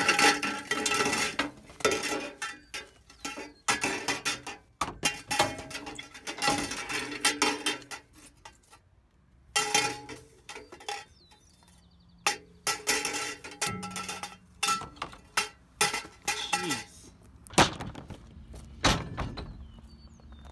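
Glass fluorescent tubes clinking and knocking against one another and the dumpster as they are tossed in and pushed down: a long run of sharp clinks and knocks with short ringing, pausing briefly about eight seconds in.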